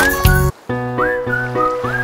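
Background music: a whistle-like melody that slides up into each note over a bass line, briefly cutting out about half a second in.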